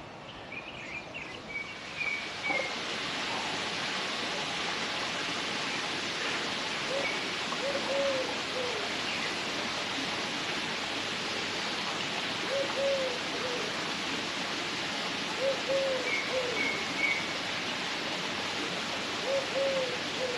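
Steady rush of running water, with a bird giving low calls in short groups of two or three notes several times, and a few high chirps from small birds.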